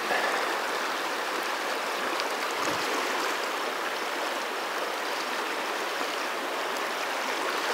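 Firehole River's fast, choppy current rushing steadily.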